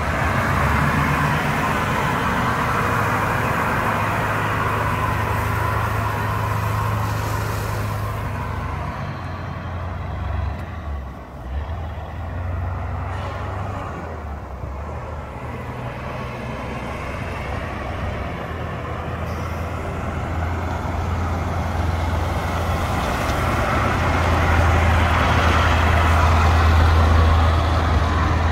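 Caterpillar diesel engine of a 1987 Ford 8000 water truck running as the truck drives. It fades in the middle and grows louder again near the end as the truck comes back close.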